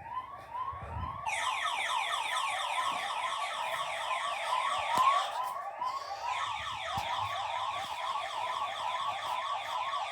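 Tapo security system sirens sounding together: a loud electronic alarm of rapid, repeating falling whoops, several a second. It grows fuller about a second in.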